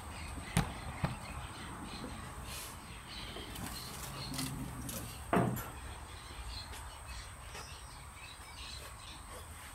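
A couple of light knocks near the start, then the steel lid of a Kingsford barrel smoker swung shut with a single short clank about five seconds in. Birds call in the background.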